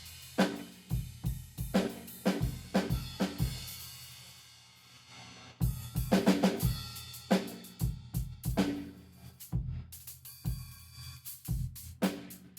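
Drum kit played with sticks, with kick, snare and Nuosheng low-volume cymbals. The playing stops about three and a half seconds in, a cymbal rings out and fades for a couple of seconds, then a fresh run of hits starts.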